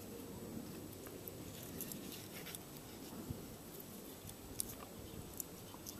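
Split pieces of a wooden log being handled and fitted back together: faint, scattered wooden clicks and light knocks.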